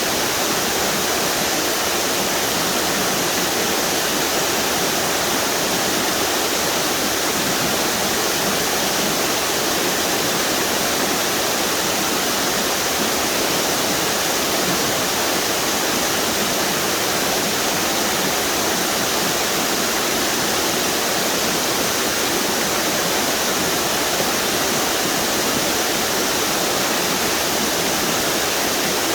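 River water pouring over a string of waterfalls, a steady full rush with a bright hiss and little low rumble.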